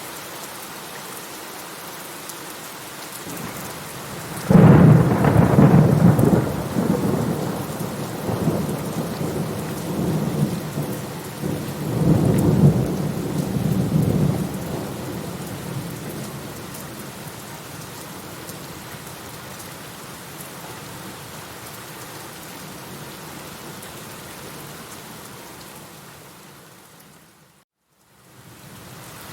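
Steady rain with a thunderclap that breaks in suddenly about four and a half seconds in and rolls on in several swells for about ten seconds before fading back under the rain. Near the end the sound briefly drops out and comes back.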